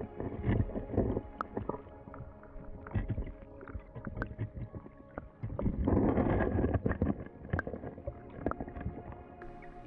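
Stream water flowing, heard muffled as through a waterproof camera housing, with scattered clicks and knocks. It swells into a louder rush for about a second around six seconds in.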